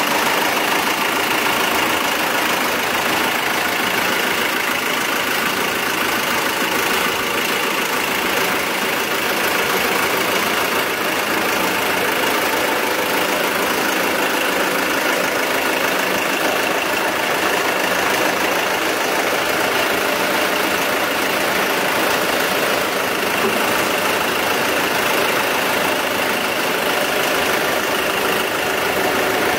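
Forklift engine running steadily, a constant mechanical drone while the forklifts carry the generator set.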